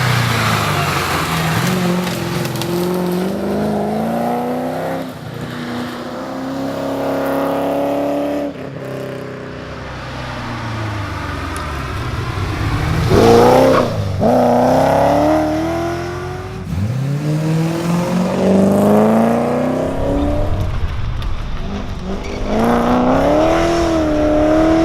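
Ford Falcon Pursuit 250 ute's straight-six engine driven hard, its note climbing through the revs and dropping sharply at each gear change or lift, several times over.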